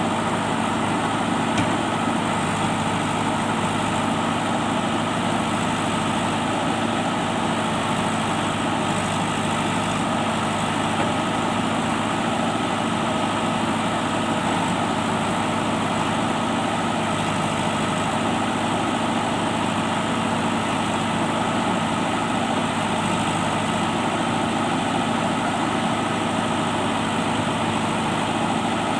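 JCB backhoe loader's diesel engine running steadily at a constant pitch.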